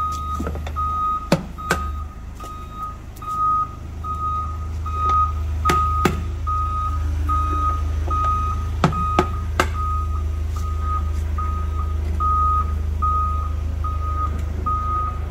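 A vehicle's reversing alarm beeps steadily, about one and a half beeps a second, over a steady low drone. A few sharp hammer blows ring out on a tool set against an oak wine barrel's hoops, some in quick pairs, louder than the beeping.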